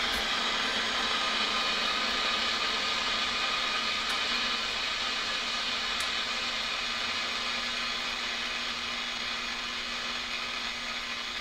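Steady rushing static from the loudspeaker of a 1940s Forestry Service valve receiver as its dial is tuned across an empty band: the set is alive and trying to receive, but no station is on. A faint steady hum sits under the hiss, with a few faint clicks.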